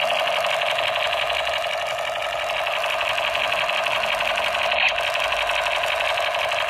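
Battery-operated toy submachine gun firing its electronic sound effect: a rapid, steady machine-gun rattle from its small built-in speaker, held without a break.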